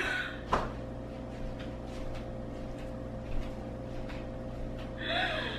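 Quiet indoor room tone with a steady low hum. There is a sharp click about half a second in, a few faint ticks, and a brief pitched sound with falling glides near the end.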